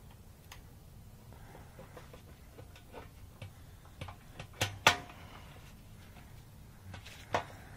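Small clicks and sharp metallic knocks as the fuel pump assembly's metal flange plate is worked against the rim of the motorcycle's fuel tank opening, with two loud knocks close together about four and a half seconds in and another near the end.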